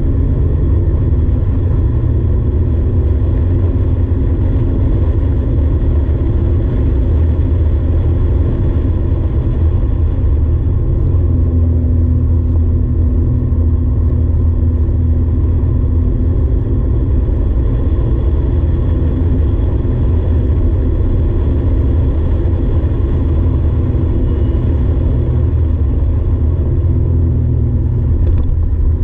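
Porsche 964's air-cooled flat-six driven hard on track, heard from inside the cabin as a loud, steady, deep drone with road and wind noise. The engine note drifts up and down as the revs change through the corners.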